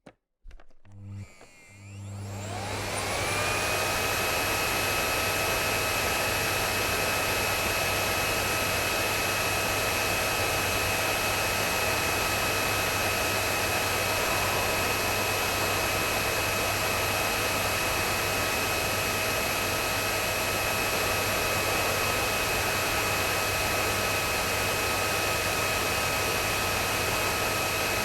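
Vacuum cleaner switched on with a click, its motor spinning up in a rising whine over the first few seconds, then running steadily with a constant high whine over the rush of air.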